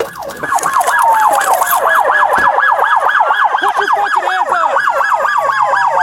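Police car sirens: one in a fast yelp, sweeping up and down several times a second, overlapped by a second siren whose tone glides slowly downward twice.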